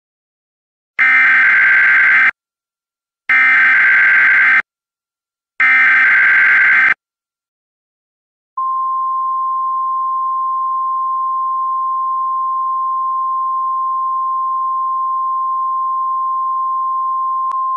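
Emergency Alert System broadcast: three short bursts of the SAME digital header tones, about a second apart, which carry the encoded warning. From about eight and a half seconds in, a single long, steady alert tone follows, signalling that the spoken warning message is about to begin.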